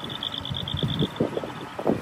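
A large box truck driving past close by, its diesel engine running, with wind buffeting the microphone. An insect sings in rapid high pulses in the background, fading out a little past halfway.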